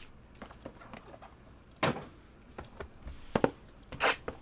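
Trading cards being handled on a table: a few light taps and sliding clicks, about two seconds in and twice more near the end, with soft rustling between.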